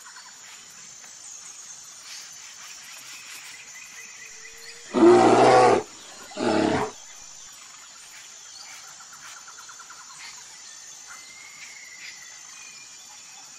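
Brown bear growling twice, a longer growl about five seconds in followed by a shorter one, with insects and birds chirping faintly behind.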